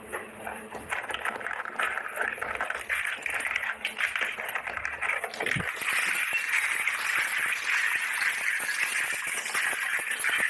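Plastic packaging crinkling and rustling as it is handled and unwrapped: a dense run of small crackles that becomes a steadier, fuller rustle about halfway through.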